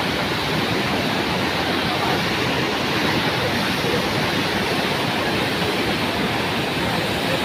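Steady rushing of a swollen, muddy river in flood, its fast floodwater churning past.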